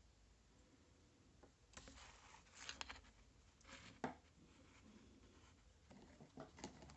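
Faint scraping and clicking as a small rusty hand tool is handled, with one sharper click about four seconds in.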